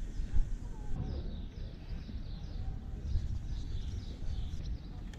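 Wind buffeting the microphone in a low, uneven rumble, with a series of short, quick, downward-sliding bird chirps starting about a second in.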